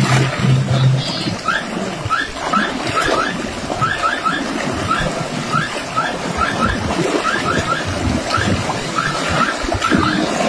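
Sea water washing and lapping around shore rocks, with a long run of short high chirps that come two or three at a time.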